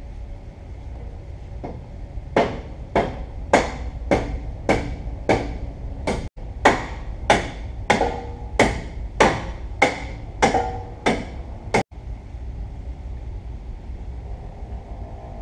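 A hand hammer striking steel in a steady run of about sixteen blows, roughly two a second, each ringing briefly. A steady low hum runs underneath.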